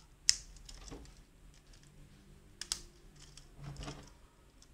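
LEGO plastic parts clicking as tyres are pressed onto a small LEGO ATV: a sharp click just after the start, two quick clicks a little past halfway, and softer handling noise of plastic pieces near the end.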